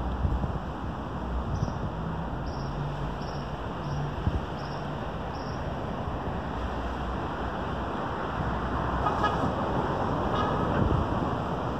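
Street traffic noise, a steady outdoor hum of passing vehicles. It swells as a vehicle passes louder from about nine to eleven seconds in. A run of about six short high chirps repeats through the first half.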